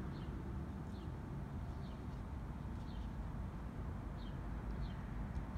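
A small bird chirping repeatedly, short high notes that fall in pitch, about one a second, over a steady low background rumble.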